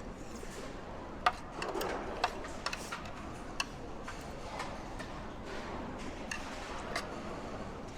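Eating sounds at a meal table: utensils clicking against dishes now and then, about half a dozen sharp clicks, the loudest just over a second in, with a short rustle of handling between them.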